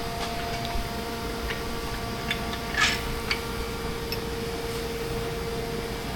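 A steady machine hum with a few light clicks and taps, the clearest about three seconds in.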